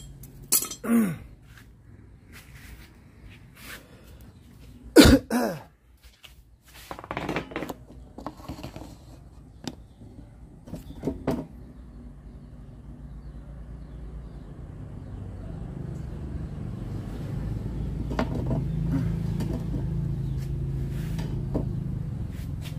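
Scattered knocks and clatter of metal tools being handled, with a short cough about five seconds in. Over the second half a steady low hum slowly grows louder.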